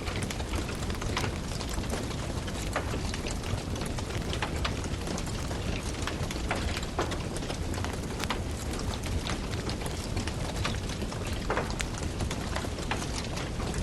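Burning firewood crackling, with frequent sharp irregular pops over a steady hiss.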